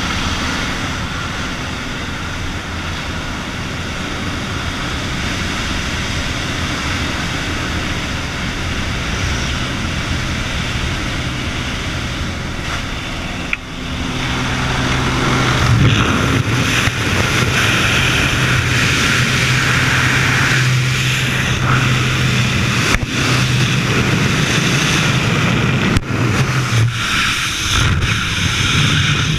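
Small jump plane's engine and propeller droning steadily inside the cabin. About halfway through, the jump door opens and the engine and rushing air grow louder. Near the end the skydivers exit, the engine drone drops away and gusting wind on the camera takes over.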